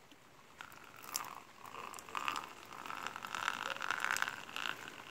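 Water dripping and splashing onto round lids and a concrete slab, in irregular drips starting about a second in.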